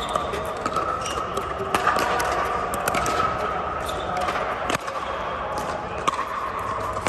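Irregular sharp pops of pickleball paddles striking plastic balls and balls bouncing on the courts, over a steady murmur of voices in a large hall.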